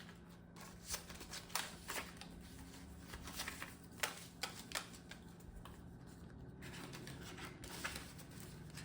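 Paper banknotes being handled and counted by hand: a string of irregular crisp rustles and flicks of the bills. A faint steady low hum lies underneath.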